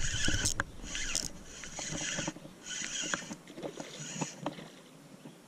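A hooked smallmouth bass being reeled in and splashing at the surface beside the boat, heard as short bursts about a second apart.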